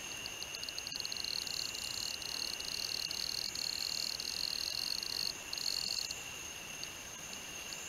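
Night-time background chorus of unseen calling animals: a high-pitched trill that starts as separate pulses, speeds up into a continuous trill for about five seconds with one short break, then trails off into a few scattered pulses. Underneath it, steady high insect tones run on without a break.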